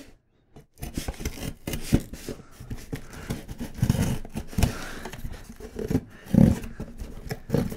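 A rusty hand saw rasping through a cardboard box and its paper packing tape in short, uneven strokes, with a few louder thuds in between.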